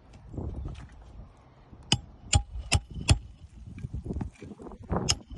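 Hammer striking a roofing nail into a shingle: four sharp, ringing knocks in quick even succession about two seconds in, then a couple more near the end, over low handling rustle.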